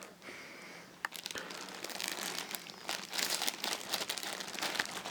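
Packaging being handled, crinkling and crackling in irregular little clicks that grow busier from about a second in.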